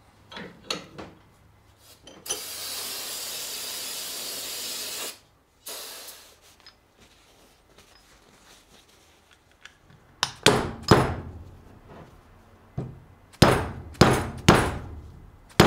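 A mallet knocking a shock's spring plate down onto the shaft: two runs of a few sharp taps in the second half. Earlier, a steady hiss lasts about three seconds.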